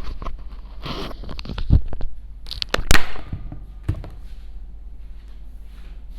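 Close handling noise: rustling with a run of clicks and knocks, the loudest a sharp click about three seconds in, then a low steady hum with a few faint ticks.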